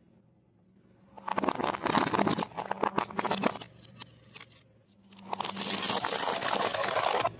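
Car tyre rolling over and crushing brittle objects: a run of crackling crunches, then about five seconds in a longer, denser crinkling as a foil-wrapped package is flattened under the tyre.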